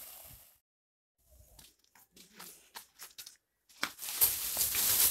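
Gushing water fades out at the start. After a near-silent gap come scattered short clicks and knocks, and about four seconds in, loud rustling and crackling.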